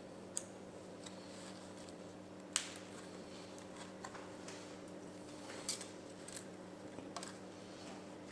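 A few light clicks and taps as a laptop motherboard, with its heatsink and fan attached, is handled and turned over on a towel, over a faint steady hum.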